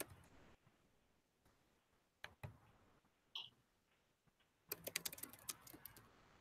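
Faint computer keyboard clicks: a few scattered taps, then a quick run of keystrokes about five seconds in.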